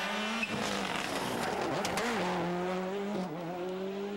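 Rally car engine running hard at high revs. The pitch dips and climbs again at gear changes.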